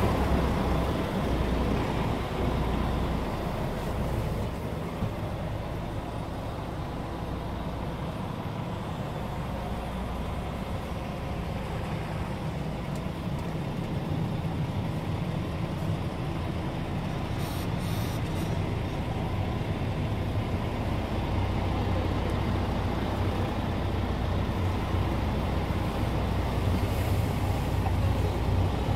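Scania R490 truck's straight-six diesel engine idling, heard from inside the cab as a steady low hum, with a few faint clicks a little past halfway.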